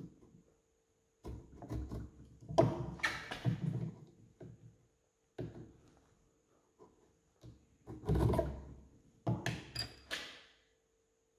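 The steel spurs of a wooden mortise gauge scraping across timber in several short strokes as two parallel lines are scored for a tenon. A knock near the end as the gauge is laid down on the wooden bench.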